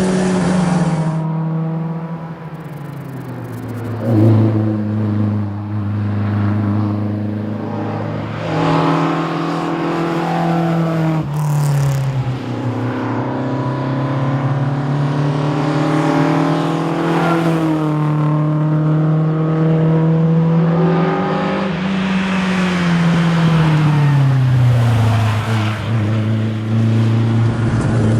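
Fiat 131 rally car's engine under hard acceleration. Its note climbs through the revs and drops sharply at each gear change, several times over, with brief lifts and falls in between.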